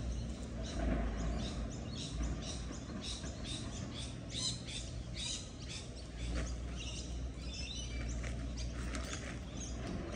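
Birds chirping and calling in the trees, a steady stream of short, high chirps, over a low steady rumble.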